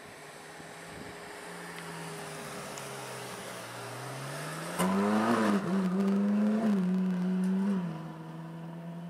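Supercar engine running, its pitch climbing slowly at first, then much louder from about five seconds in as it revs up and down, before dropping back to a steady lower note near the end.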